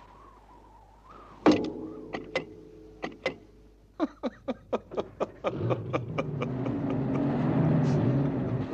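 A loud metal clank with a ringing hum after it, a few more knocks, then a quick run of about four clicks a second. After that an engine starts and runs, its drone building and growing louder toward the end.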